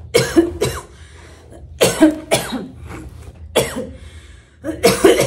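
A woman coughing repeatedly, in short loud bursts grouped in twos and threes.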